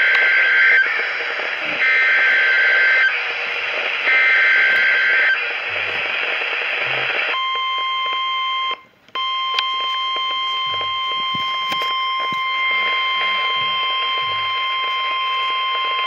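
Emergency Alert System broadcast through a Reecom NOAA weather alert radio's speaker over static hiss. First come three roughly one-second bursts of the two-pitch SAME data header, the coded signal that triggers the alert. About seven seconds in the steady 1050 Hz NOAA warning alarm tone starts and holds, cutting out briefly about nine seconds in.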